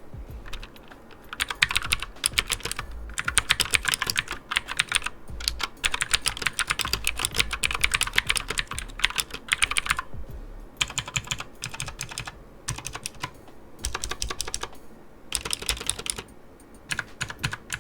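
Typing on a Redragon K580 Vata mechanical keyboard with Outemu blue switches: rapid, crisp clicks from the clicky switches in bursts of fast keystrokes with short pauses between them.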